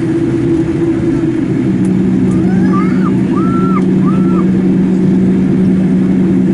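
Steady cabin drone of a Boeing 787-8 taxiing, its engines running at low power. A second, lower hum joins about two seconds in and holds steady.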